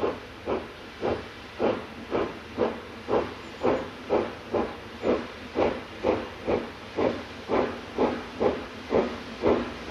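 Steam locomotive exhaust chuffing, about two beats a second and slowly quickening as the engine works hard pulling away, with steam hissing between the beats.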